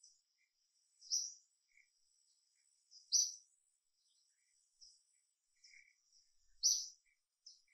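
A small bird calling in short, high chirps every second or two, the loudest about a second, three seconds and nearly seven seconds in, over a faint steady high whine.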